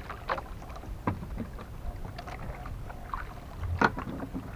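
Small outrigger fishing boat drifting, with a steady low rumble of wind and water around the hull. A few sharp knocks sound on the boat as the handline is worked, the loudest near the end.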